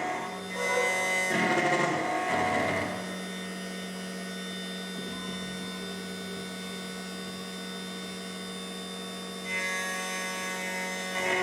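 SEC-E9 CNC key cutting machine running with a steady motor hum as it cuts a DWO4 car key blank. Background music plays for the first few seconds and comes back near the end.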